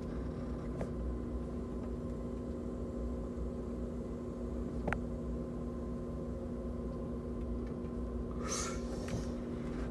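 A person blows out a breath of vape vapour with a breathy exhale about eight and a half seconds in, after a long draw on a STIG disposable vape pod. A steady hum runs underneath, with a single faint click about five seconds in.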